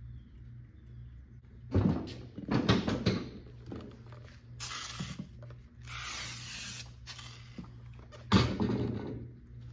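Motorcycle tire being worked onto its rim: sharp metal knocks and clanks of tire irons against the wheel, about two seconds in, again around three seconds and near the end, with two short hissing sprays in between, over a low steady hum.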